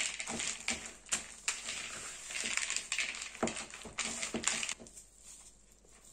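Wooden spoon stirring thick chocolate-chip cookie dough in a plastic mixing bowl: a squelching, scraping noise with a few knocks of the spoon against the bowl, dying down about five seconds in.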